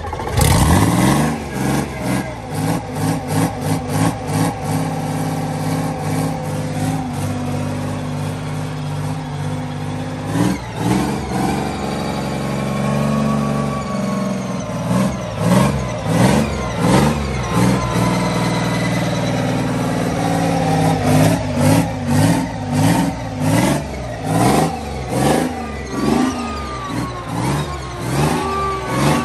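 FV432 Rolls-Royce K60 six-cylinder two-stroke opposed-piston multi-fuel engine running out of the hull, just after starting. From about halfway the revs rise and fall repeatedly, about once a second. The owners say its hydraulic governor has gone weak because fuel gummed up the pump after years of standing.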